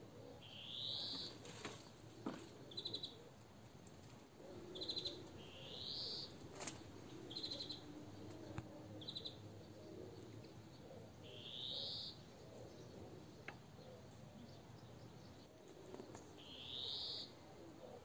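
Songbirds calling: a rising whistled note repeated four times, every few seconds, with short rattling calls of a few quick pulses between them.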